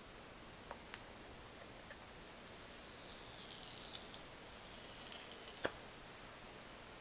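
Faint handling of a phone and a tempered-glass screen protector: a few light taps and clicks, the sharpest near the end, and a soft hissing rustle in the middle.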